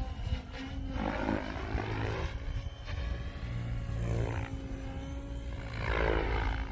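Goosky RS7 radio-controlled helicopter in flight, its rotor and motor whine sweeping up and down in pitch several times as it is thrown through aerobatic manoeuvres, over a low rumble.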